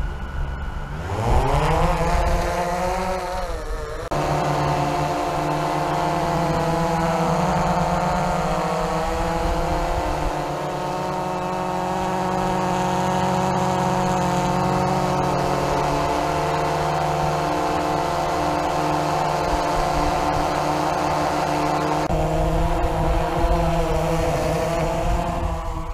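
DJI Phantom 3 Advanced quadcopter's motors and propellers whining. The pitch rises about a second in as the drone spools up and lifts off, then holds a steady multi-tone whine while it hovers, with small shifts in pitch as it moves.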